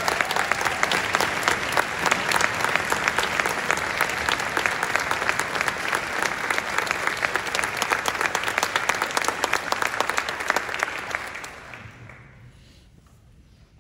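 Audience applauding, a dense patter of many hands clapping that dies away about twelve seconds in.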